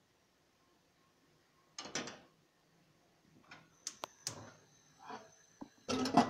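Clinks and knocks of a stainless-steel saucepan and its lid being handled at a gas stove: a short clatter about two seconds in, scattered sharp clicks after, and a louder clatter near the end.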